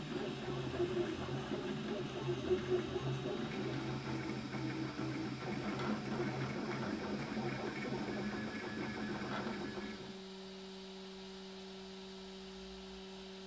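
3D printer's stepper motors whirring in shifting, stepping tones as the print head moves while printing. About ten seconds in the motor sound stops and a steady low hum carries on.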